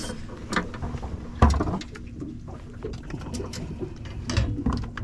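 A freshly landed snapper and the landing net on a boat deck: a series of irregular thumps and slaps as the fish flaps and is handled in the net, the loudest about one and a half seconds in.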